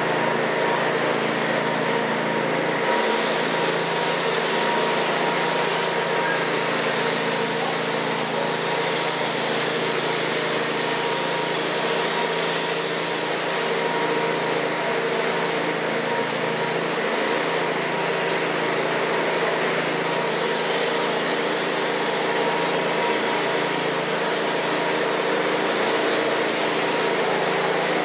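Steady, unbroken drone of running machinery, an even rushing noise with several low humming tones held throughout.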